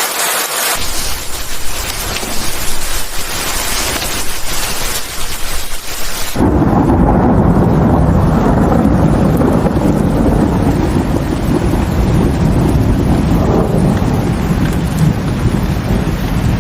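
Steady hiss of heavy monsoon rain; about six seconds in it cuts abruptly to a loud, deep, steady rumble of thunder that runs on to the end.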